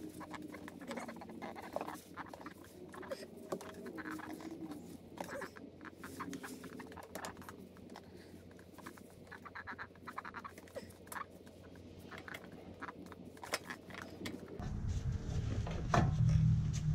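Scattered light clicks and taps of metal parts being handled as a rebuilt Stern adjustable upper control arm is worked into place on an Audi B7 A4's front suspension. A low rumble comes in near the end.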